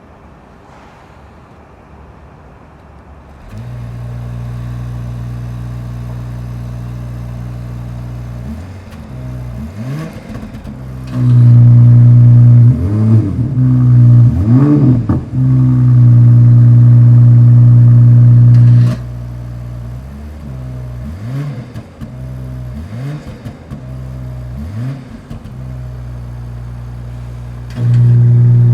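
BMW X5 50e's turbocharged straight-six with an aftermarket DCE Parts V2 exhaust cold-starting a few seconds in, then idling with a steady drone and a series of short throttle blips. It jumps much louder for several seconds around the middle and again near the end as the exhaust valves are switched between closed and open.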